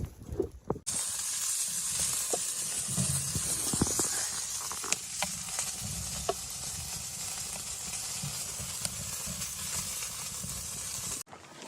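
Food sizzling in a hot pan: a steady frying hiss with a few sharp pops, starting and stopping abruptly.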